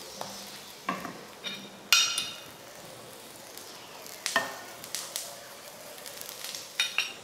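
Oiled egg-stuffed chapati sizzling on a dosa griddle over a low flame, with a spatula and a steel spoon pressing it down against the pan. Half a dozen sharp clicks of the utensils on the griddle, the loudest about two seconds in.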